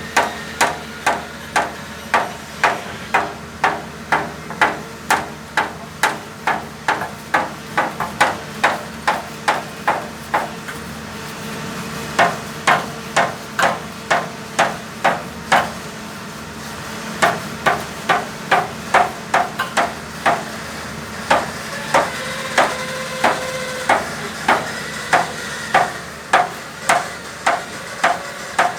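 Hammer blows struck over and over, about two a second, in runs with short pauses between them. Some blows leave a brief ringing tone.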